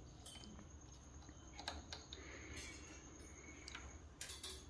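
Faint, scattered clicks and light rubbing from small parts being handled, a few clicks in quick succession near the end, over a low steady hum.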